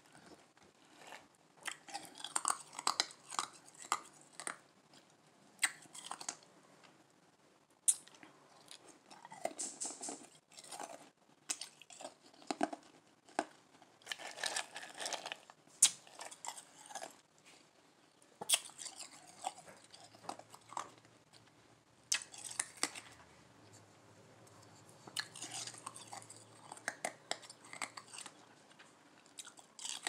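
Ice cubes being bitten and chewed close to the mouth: soft crunches coming in irregular clusters, with a few sharp single clicks between them.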